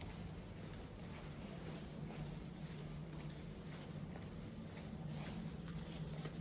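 Steady low room hum with faint, scattered rustling and light handling clicks.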